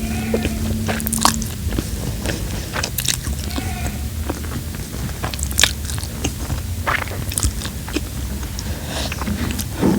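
Close-miked mouth sounds of someone eating spaghetti noodles: wet chewing and slurping with scattered short smacks and clicks.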